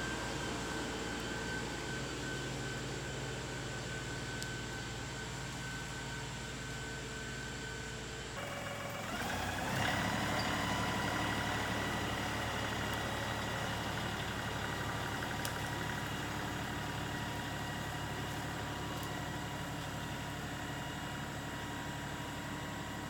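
LS XR3135 tractor engine running steadily. About eight seconds in the sound changes abruptly, and the engine then revs up and holds at a higher speed.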